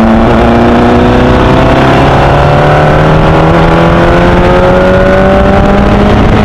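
Onboard sound of a Formula Easter (B8) single-seater race car's engine under full acceleration, its note climbing slowly and steadily through the revs in one gear.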